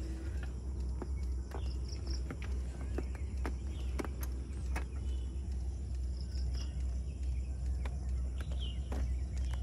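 Yamaha sport motorcycle's engine idling steadily just after a cold start, with a few bird chirps.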